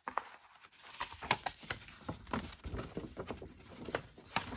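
Irregular light clicks and taps of plastic disc packaging being handled.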